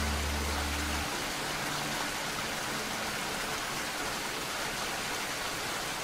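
Steady rain falling, an even hiss. The last low music notes stop within the first two seconds.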